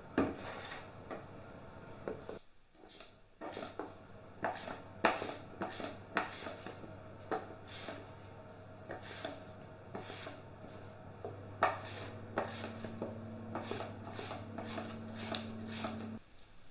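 Knife slicing potatoes on a chopping board, with irregular knocks of the blade against the board. A low steady hum runs underneath, growing a little about twelve seconds in and stopping just before the end.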